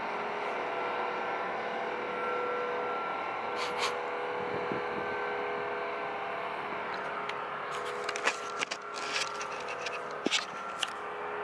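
An unidentified steady droning hum, the so-called strange sound or "hum" heard over Warsaw, with several held tones under a constant noisy rumble. A few sharp clicks come in the second half. The recordist first took it for a diesel engine or a snowplough.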